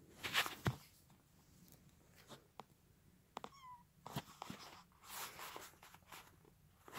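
A young kitten gives one short, high mew about halfway through, among soft rustling and handling noises.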